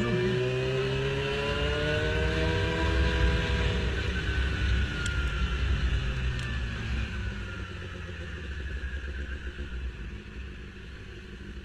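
Sport motorcycle engine pulling with its pitch slowly climbing for about four seconds, then dropping back and fading away, with a low wind rumble on the microphone throughout.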